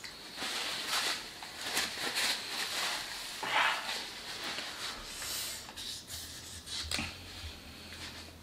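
Paper napkin rustling and rubbing as hands are wiped, with small crinkling clicks, then quieter handling noise and a short knock about seven seconds in as a foam cup is moved on the table.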